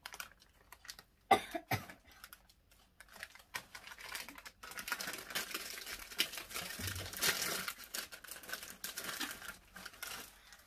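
A crisp packet being handled: a couple of sharp snaps about a second in, then steady crinkling of the packet.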